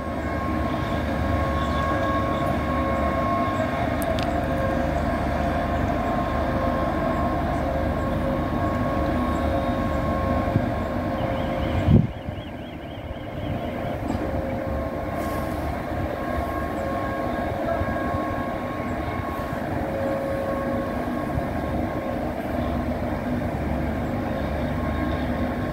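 Steady mechanical hum of a standing train, several fixed tones over a low rumble. There is a short loud knock about twelve seconds in, and the hum is a little quieter after it.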